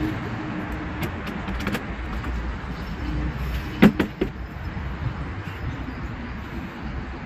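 Steady low traffic rumble with a few light clicks and then a pair of sharp knocks about four seconds in, the loudest sound here.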